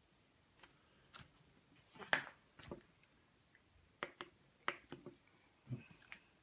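Buttons on a Lightwave RF wall dimmer clicking as they are pressed, about ten short clicks at uneven intervals with light handling of the switch plate, while its dimming range is being adjusted.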